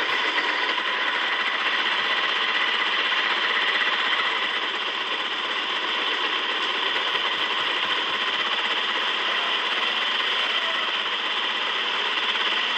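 Small electric gear motor of a metal construction-kit model tractor truck, running steadily as the truck drives in reverse.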